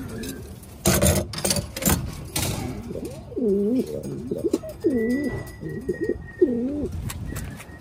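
Domestic pigeon cooing: a run of about four rolling, warbling coos from about three seconds in. Before that, a few sharp clicks and rattles from the wire cage door being handled.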